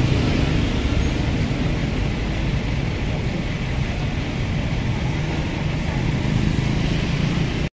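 Steady street-traffic rumble of motor vehicles running nearby, with a deep low hum and no distinct events.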